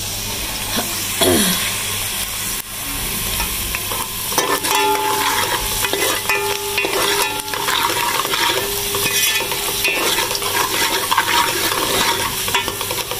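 Sliced onions and cumin seeds sizzling in hot oil in an aluminium pot, with a steel spoon stirring and scraping against the pot's metal bottom; the scrapes come again and again from about four seconds in.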